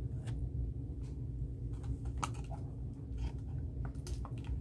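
Light, scattered clicks and taps as a tiny 1/64-scale model air compressor is handled and set in place on a model garage diorama, over a low steady hum.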